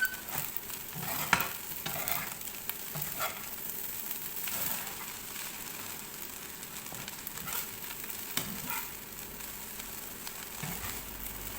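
Fried rice sizzling in a hot pan over a high flame while a spatula stirs it, with scattered short scrapes and clicks of the spatula against the pan.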